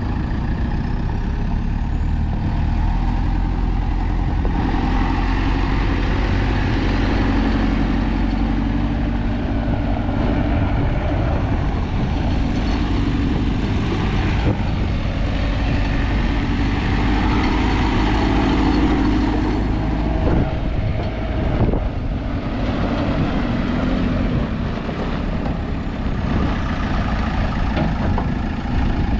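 2010 JCB 3CX backhoe loader's diesel engine running steadily, its speed rising and falling a few times, with two sharp knocks about two-thirds of the way through.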